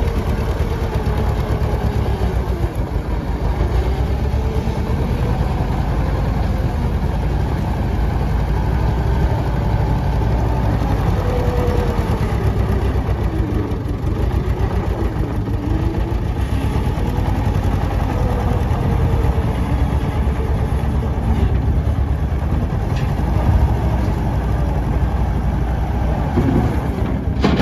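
Bobcat 873G skid steer loader's 73 hp Deutz diesel engine running steadily, with a whine that rises and falls in pitch as the engine speed and load change.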